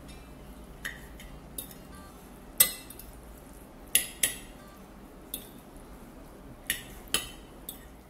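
Stainless steel fork and spoon clinking against a ceramic plate while tossing spaghetti in bolognese sauce: about ten irregular sharp clinks, the loudest a little over two and a half seconds in.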